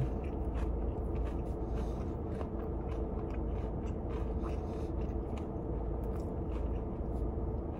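A person chewing a mouthful of food with the mouth closed, small irregular wet clicks of the jaw and lips, over a steady low hum.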